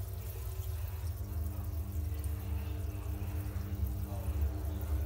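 Steady low hum of a small motor, with faint water sounds.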